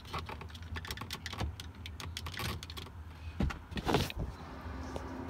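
Light clicks and rattles of small plastic parts and tools being handled, with a louder scrape about three and a half to four seconds in, over a steady low hum.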